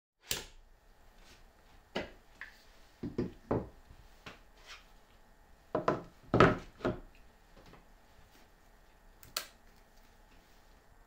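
Plywood workpieces being handled and set down on a work table: a series of light wooden knocks and taps, with the loudest cluster about six seconds in and a last knock near the end.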